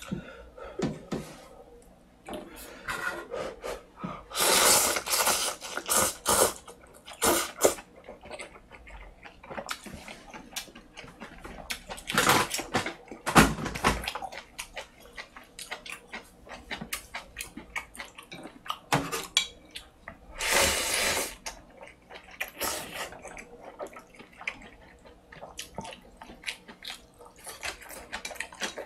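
Close-up eating sounds: thick ramen noodles in spicy broth slurped in several long wet draws, with chewing and small clicks between them.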